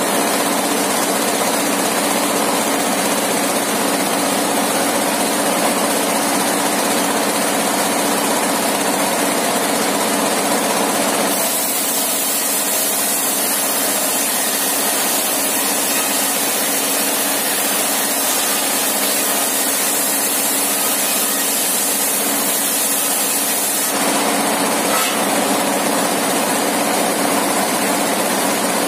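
Engine-driven sawmill circular saw with a 60-inch blade running steadily, ripping a timber plank; the sound turns hissier for a stretch in the middle while the blade is in the wood.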